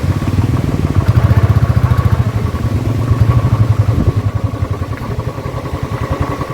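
Motorcycle engine running with a fast, even pulsing beat, loudest between about one and three and a half seconds in and easing off toward the end.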